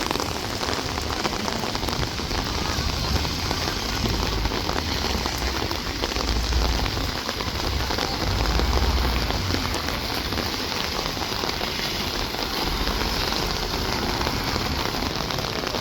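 Steady rain falling, a dense even patter, with a low rumble underneath that swells and fades.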